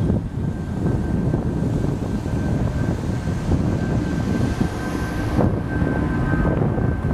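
Jet engines of a twin-engine Boeing airliner climbing out just after takeoff: a steady low rumble with a thin, steady whine above it.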